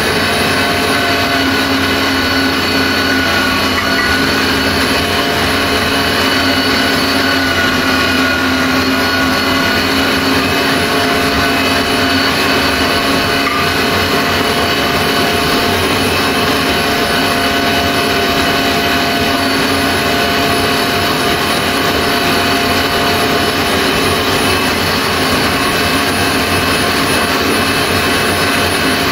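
Stilevs Chefturco electric meat grinder running steadily under load with its Salçamatik tomato-juicer attachment, pressing tomato pieces into purée: an even motor hum and whine at a constant pitch.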